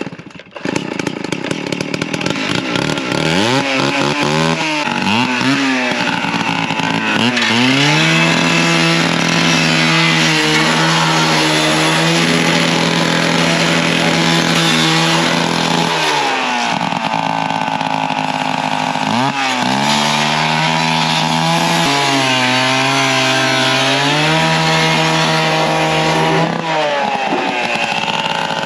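An engine revving hard. It is blipped up a few times, then held at high revs for several seconds, drops back, and is revved and held high again.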